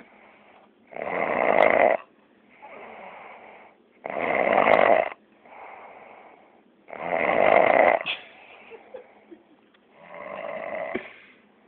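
A sleeping pet snoring: four loud snores about three seconds apart, the last one weaker, with softer breaths between them.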